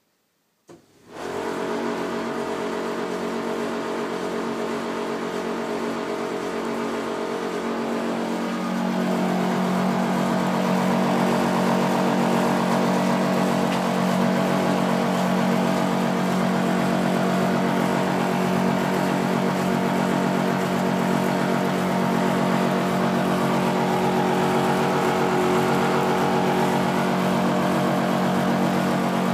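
Tumble dryer running with a horrible, abnormal noise: a steady mechanical drone with several held tones. It starts about a second in and gets louder about eight seconds in.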